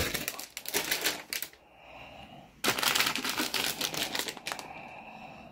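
Clear plastic bags holding model-kit runners crinkling and crackling as they are handled, in two spells, the second starting about two and a half seconds in.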